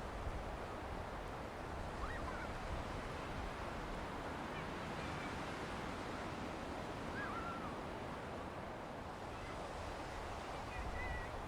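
Sea surf washing steadily onto a sandy beach, with a low rumble of wind. A few faint short high calls come through, about two seconds in, around seven seconds and near the end.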